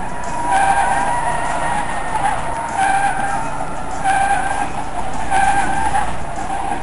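Car tyres squealing and screeching in a burnout, the squeal swelling in waves every second or so.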